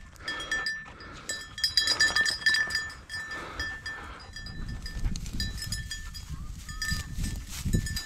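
A small bell on a hunting dog's collar jingling in quick, uneven strikes as the dog works through tall dry grass, over rustling and footsteps in the grass that grow louder in the second half.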